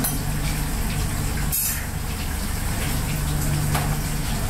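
Water running steadily from a kitchen tap, over a steady low machine hum, with a brief high hiss about one and a half seconds in.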